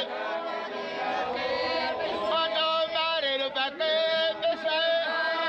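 A group of voices chanting together over one steady held note.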